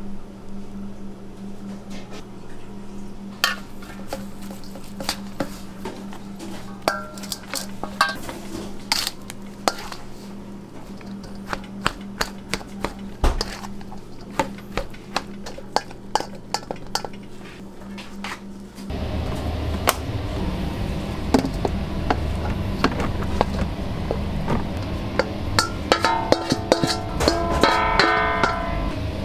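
A plastic rice paddle mixing and scraping cooked rice in a large stainless steel bowl, with many short clicks and scrapes against the metal over a steady low hum. A louder rushing noise comes in about two-thirds of the way through, and near the end the bowl is scraped out with a quick run of rattling, ringing clinks.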